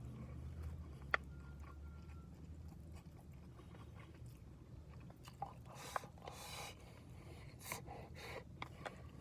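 Close-up chewing and mouth sounds of someone eating a gyudon beef-bowl boxed lunch, with a sharp click about a second in and a run of short crackly bites and clicks in the second half, over a steady low rumble.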